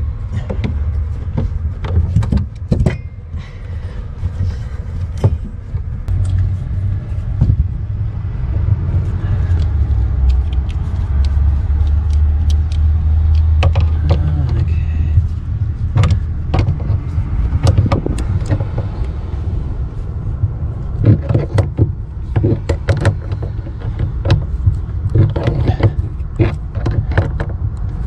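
Hand tools clinking against metal air-line fittings as a check valve is taken off and the fittings are worked loose and refitted: scattered sharp clicks and knocks, more of them in the second half, over a steady low rumble.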